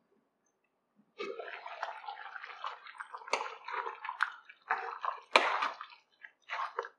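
Wooden spatula stirring thick, creamy chicken gravy in a pan: wet squelching in uneven strokes, with a few sharp knocks of the spatula against the pan. It starts about a second in.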